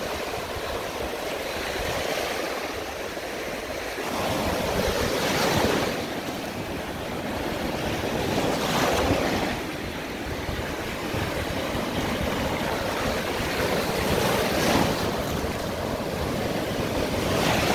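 Gulf of Mexico surf breaking and washing up the beach, swelling in several surges a few seconds apart, with wind rumbling on the microphone.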